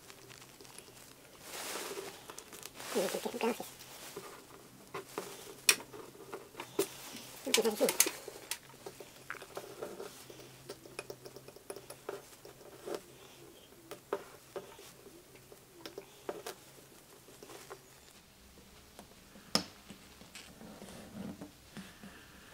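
Scattered clicks, taps and short rustles of hands handling tools and materials at a workbench, over a faint steady hum that stops about three-quarters of the way through.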